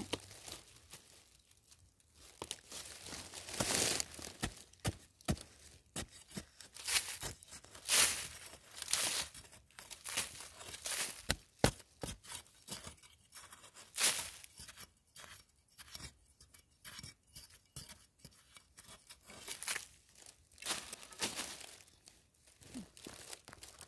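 A small spade scraping and chopping into dry, crumbly soil: irregular gritty scrapes and crunches, with one sharp knock of the blade about eleven and a half seconds in.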